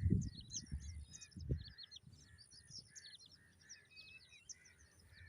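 Many birds calling with quick, high chirps throughout, over a low rumble that fades out after about a second and a half.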